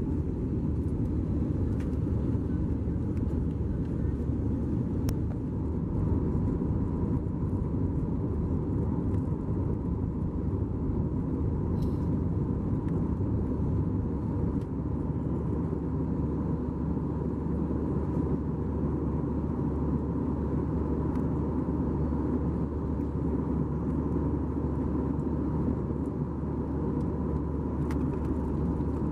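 Steady, even cabin noise of an Airbus A320-214 in flight, heard from inside the cabin: a low rumble of airflow and its CFM56 engines, with a faint steady higher hum over it.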